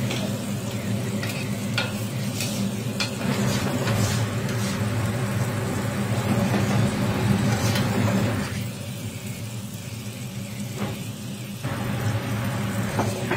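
Chicken pieces frying on a flat steel griddle, sizzling, with a metal spatula scraping and clacking against the plate as the meat is chopped and turned. The sizzle falls away for about three seconds past the middle, over a steady low hum.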